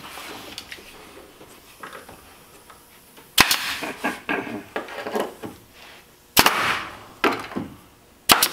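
Pneumatic air stapler firing staples into the wooden wrap paneling of a trailer wall: about five sharp shots, the first about three seconds in and the last two close together near the end, some followed by a short hiss of air. Some of the staples don't want to go in all the way, which could be a knot in the wood.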